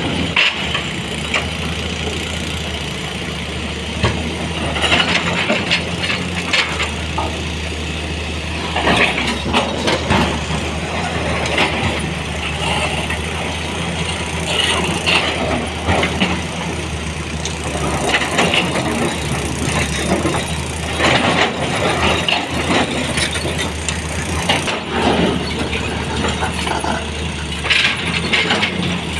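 Sany 240 excavator's diesel engine running steadily, while stones knock and clatter against steel in repeated bursts as rock is picked up and loaded.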